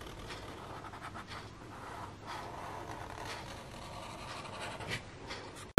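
Felt tip of a permanent marker rubbing over sketchbook paper in short, quiet strokes as an outline is coloured in.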